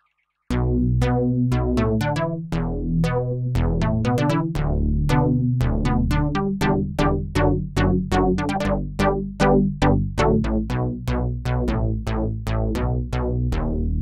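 Access Virus TI Snow synthesizer playing a plucked patch: a steady stream of sharp, quickly decaying notes, about two to three a second, over held bass notes. It starts about half a second in after a brief silence.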